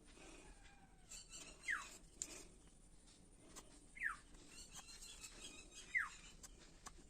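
A bird calling faintly: a single short whistled note falling in pitch, repeated three times about two seconds apart, with light clicks and rustles.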